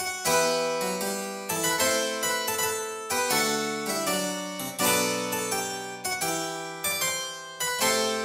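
Background music: a keyboard instrument playing a lively classical-style piece. Notes and chords are struck in quick succession, each ringing bright and fading.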